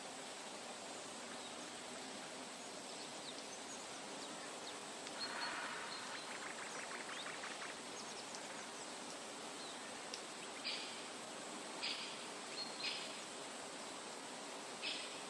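Forest ambience: a steady soft hiss of natural background noise, with birds calling over it. There is a quick rattling trill about five seconds in, then four short high chirps spread through the second half.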